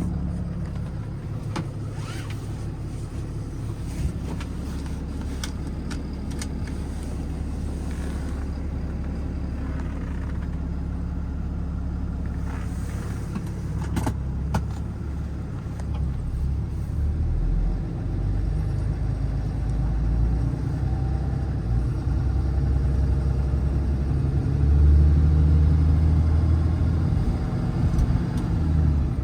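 Ram 5500's 6.7-litre Cummins diesel engine running, its note shifting pitch partway through and growing louder in the second half, with a few sharp knocks early on.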